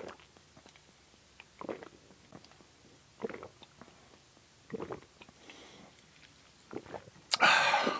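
Loud swallowing gulps of sparkling water straight from the bottle, about five separate gulps spaced roughly a second and a half apart, close to the microphone. A louder, longer breathy rush comes near the end.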